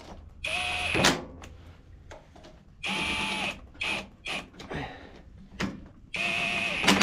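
Cordless drill/driver run in three short bursts, each spinning up to a steady whine and winding down, as it drives screws into the mower engine's carburetor assembly. Small clicks and knocks of handling fall between the bursts.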